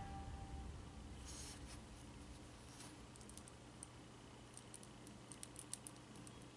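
Faint scattered clicks and light scratching as fingers handle Play-Doh pretzels on a plastic tray. The last note of background music dies away at the very start.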